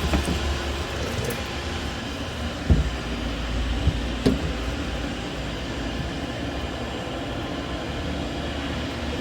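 Steady rumbling background noise, with a few sharp knocks from parts or tools being handled about three and four seconds in.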